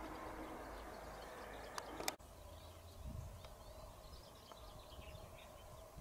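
Faint open-air field ambience: a steady low rumble with small birds chirping now and then. Two sharp clicks come about two seconds in, where the background abruptly changes.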